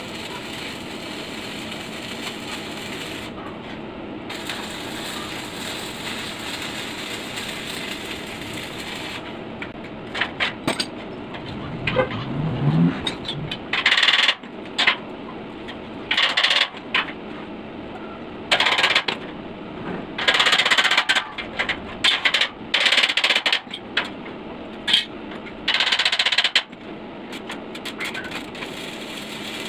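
Electric arc welding on a steel-tube frame: a series of short crackling arc bursts, each about half a second to a second and a half long, starting about ten seconds in and running until near the end, over a steady background hiss.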